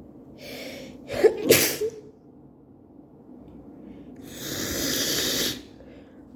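A woman who is ill sneezes once, a short breath in followed by a sharp voiced sneeze. About three seconds later comes a long, noisy breath.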